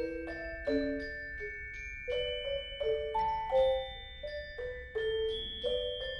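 Glockenspiel, marimba and vibraphone trio playing a courante: quick runs of struck notes, several a second, with the higher notes ringing on over them.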